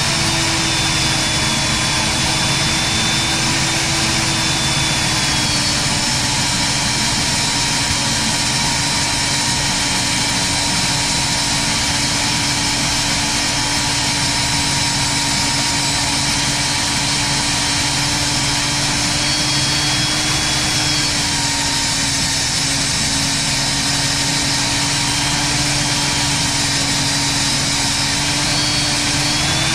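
Drill press motor running steadily under load as a large bit bores through a clamped steel bar. Its hum drops slightly in pitch about five seconds in and comes back up near the end.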